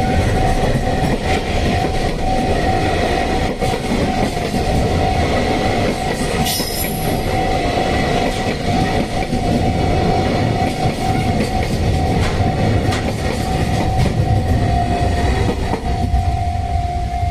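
Container wagons of a freight train rolling over a level crossing, a continuous rumble and clatter of wheels on the rails. The crossing's warning bell rings over it as a steady high tone.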